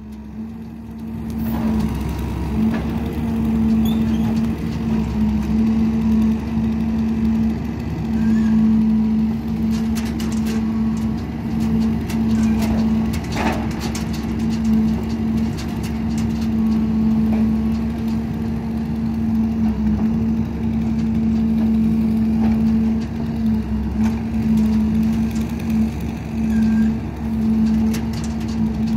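Freightliner M2 grapple truck's diesel engine running steadily with a constant hum, powering the hydraulic knuckleboom grapple. Scattered knocks and clunks come through around the middle.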